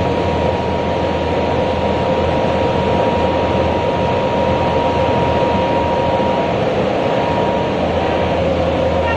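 Industrial glass washing machine running steadily: a loud, even mechanical rush with a low hum and a thin constant whine.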